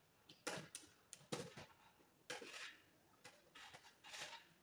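Gloved hands laying electrical wires into plastic trunking: irregular clicks, rustles and scrapes of wire and plastic being handled, the loudest about half a second and a second and a half in.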